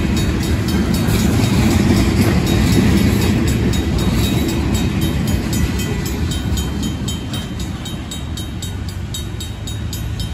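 Freight train tank cars rolling past over a grade crossing, the rumble of the wheels easing over the last few seconds as the end of the train goes by. Throughout, the crossing's RACO mechanical bell rings steadily at about three strokes a second.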